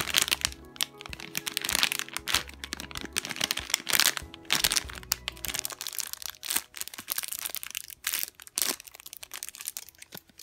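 Plastic packaging bags crinkling and crackling in the hands, in quick irregular bursts, as squishy toys in their bags are turned over and handled.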